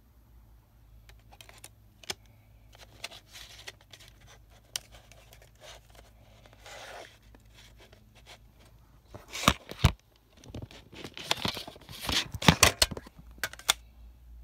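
Plastic CD jewel case clicking as it is handled, then a paper insert booklet rustling and scraping as it is slid out of the case and opened, in loud clusters through the second half.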